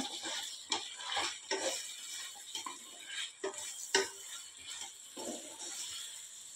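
Sliced onions, green chillies and whole spices sizzling in hot oil in a stainless steel kadai, stirred with a wooden spatula. The spatula scrapes and knocks against the pan now and then, with one knock loudest about four seconds in.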